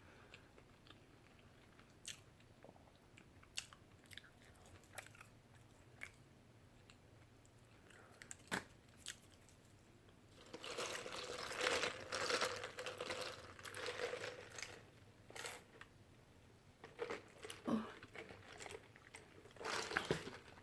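A person chewing and crunching food close to the microphone: scattered wet mouth clicks at first, then a dense stretch of crunchy chewing about halfway through, and a few more bites near the end.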